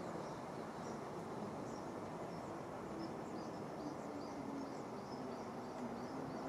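Outdoor ambience: a steady background rush with many small, high, quick chirps repeating throughout, and a faint low drone in the middle.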